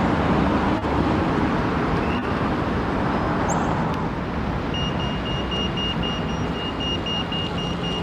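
City street traffic noise, a steady rumble of passing vehicles. About halfway through a rapid high electronic beeping starts, about three to four beeps a second.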